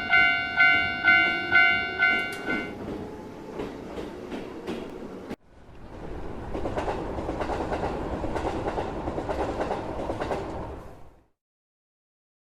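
Dubbed-in railway sound effects: a bell rings with about two strokes a second, then train wheels clack over the rail joints and stop abruptly, followed by the steady rumble of a running train that cuts off a second before the end.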